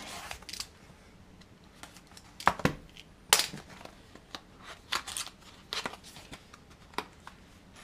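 Cardboard SSD retail box being opened by hand: a seal cut at its edge and the inner box slid out of its sleeve, a string of short scrapes, taps and rustles.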